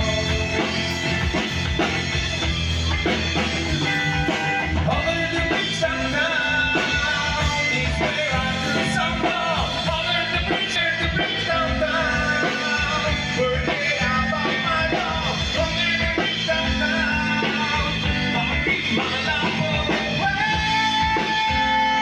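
Live rock band playing through a PA: singing over a drum kit, bass and electric guitars, amplified by an Elipsis line-array system with subwoofers.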